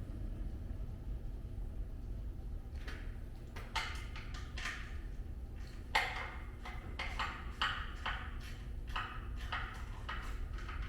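Irregular sharp metallic clinks and scrapes, starting about three seconds in and coming thick and fast in the second half, over a steady low hum.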